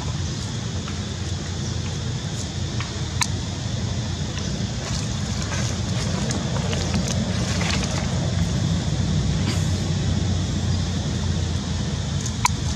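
Steady low outdoor rumble, like distant engine or traffic noise, with a few short sharp clicks over it.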